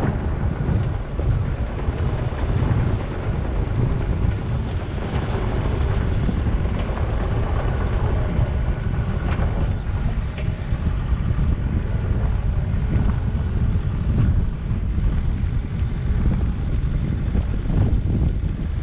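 Backhoe's diesel engine running steadily, with wind buffeting the microphone.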